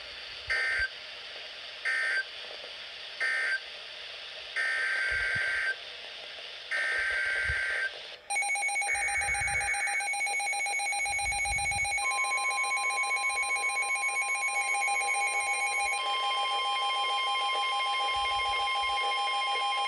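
Emergency Alert System tones. Three short bursts of shrill two-tone data close one alert, and three longer bursts open the next. A steady alert tone follows, and a second, higher steady tone joins it about four seconds later.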